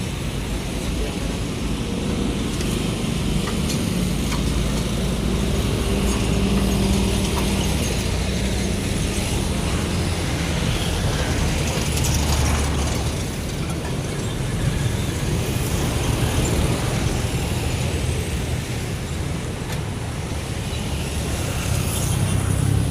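Ratchet-like clicking and metal rattling from work on a bus engine being fitted, over a steady low rumble.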